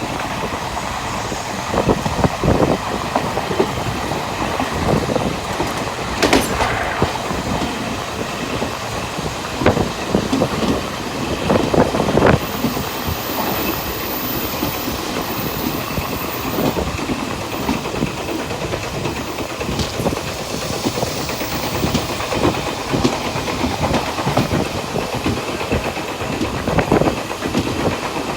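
Passenger train running at speed, heard from the open rear platform of its last car. A steady rolling rumble is broken by irregular clacks of the wheels over rail joints.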